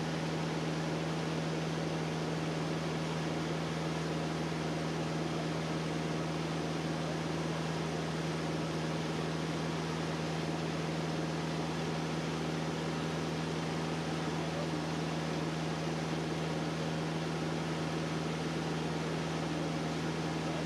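Single-engine float plane's engine and propeller droning steadily in level cruise: a constant low hum over an even rush of airflow noise.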